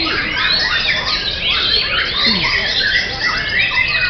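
Several caged white-rumped shamas (murai batu) singing at once, a dense, unbroken tangle of overlapping whistles, trills and chirps.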